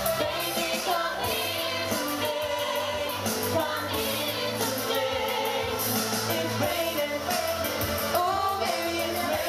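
A lead singer and a youth choir singing a pop song through a PA, over a backing track with a steady beat.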